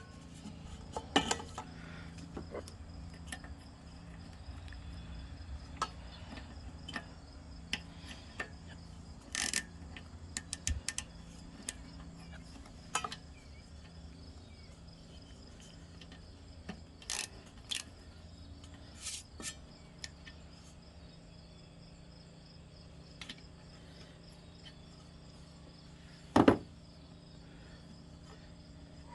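Crickets chirping steadily in a fast pulsing trill, over scattered clicks and clinks of small parts being handled, with one sharp knock near the end.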